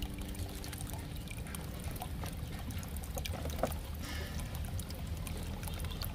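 Faint handling of a cardboard toy box with a clear plastic window: scattered light clicks and rustles over a low steady rumble.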